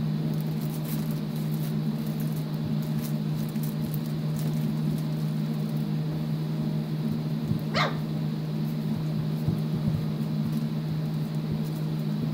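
Litter of four-week-old puppies scuffling over a rubber toy, with light scrabbling and one short, high puppy yip about eight seconds in, over a steady low hum.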